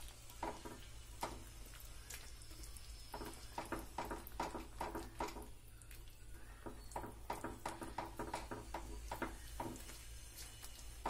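Silicone whisk stirring a thick cornflour, sugar and ghee halwa paste in a nonstick pan: faint, repeated soft strokes of the whisk through the sticky mixture and against the pan.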